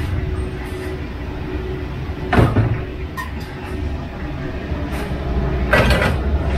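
Steady low rumble of a commercial gas wok burner, with two short clatters of kitchen work, one about two and a half seconds in and one near the end.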